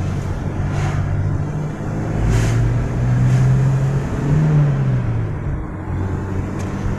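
Toyota Kijang Innova's petrol engine heard from inside the cabin while driving, pulling up in pitch about two seconds in, rising again briefly around four and a half seconds and then dropping back, over road noise. It runs smoothly under acceleration without hesitating, its misfire cured by work on the spark plugs and ignition coils.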